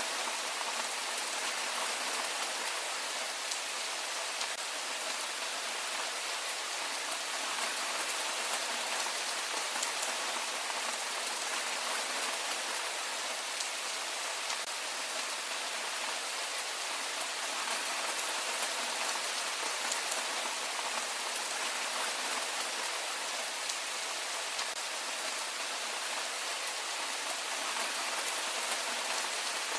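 Heavy rain falling steadily, an even hiss with a dense patter of drops.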